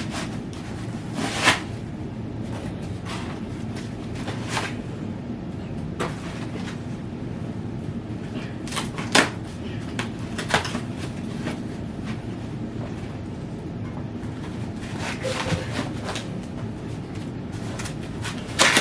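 Scattered knocks and clacks of e-bike parts and packaging being handled during assembly, over a steady low room hum.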